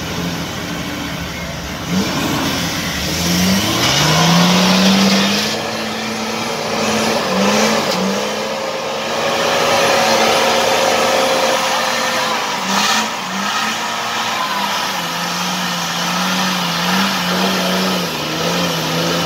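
Off-road 4x4's engine revving hard under load. Its pitch climbs about three seconds in and stays high, with repeated throttle blips, over a steady rushing noise.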